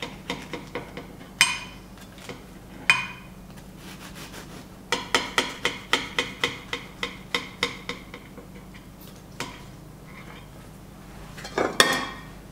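A knife sawing through the crisp baked crust of a strudel in a fast series of crackling scrapes, about four or five strokes a second at the busiest. Twice in the first three seconds the blade strikes the ceramic plate with a sharp ringing clink. Near the end plates clatter as one is picked up.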